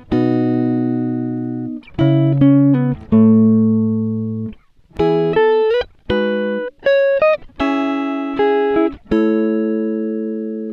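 Background music: a guitar playing a slow line of plucked notes and chords that ring out and fade, with a few notes sliding up in pitch.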